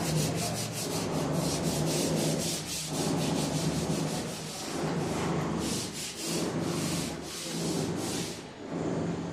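Sanding in repeated strokes, a rough scraping over a steady low hum, broken by short pauses every second or two.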